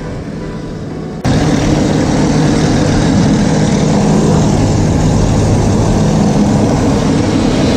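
Small airplane's engine and propeller running steadily, jumping suddenly louder about a second in.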